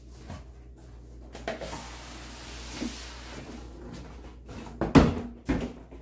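Cardboard scraping and sliding as an inner carton is drawn out of a large cardboard box, then two sharp cardboard thumps about five seconds in.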